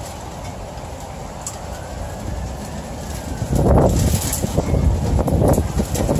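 Thunder rumbling during a storm over a steady low background noise. The rumble builds and breaks out loud and irregular a little past halfway.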